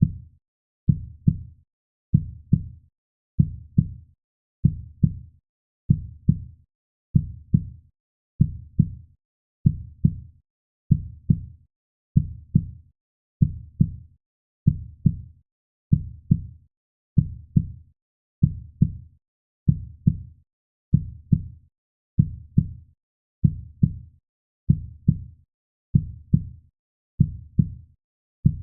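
A slow, steady heartbeat: low double thumps (lub-dub) repeating evenly about once every 1.3 seconds, with quiet between beats.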